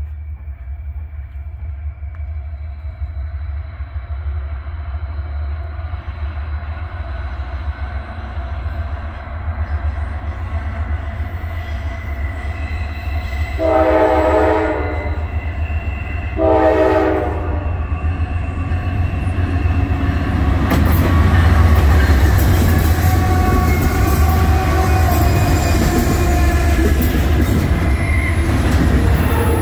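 Norfolk Southern diesel freight locomotive approaching with a low rumble and sounding its horn twice about halfway through, the first blast longer than the second. It grows louder as it reaches and passes, and double-stack container cars follow, rolling by with steady wheel-on-rail noise.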